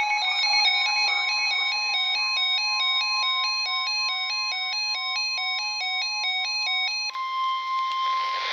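Electronic emergency alert tones: a warbling, ringtone-like run of beeps stepping up and down several times a second over a steady high tone. About seven seconds in, this gives way to a single steady alert tone near 1 kHz with a hiss behind it, like a weather-radio warning alarm.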